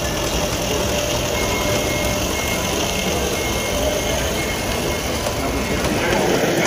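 A butane-fired, live-steam Accucraft 13-ton Lima Shay model locomotive running steadily along the layout track.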